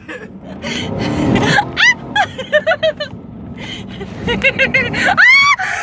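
A woman laughing in rapid bursts and letting out a long, high shriek near the end, inside a Chevy Tahoe, over the low rumble of the 4x4 ploughing through deep snow.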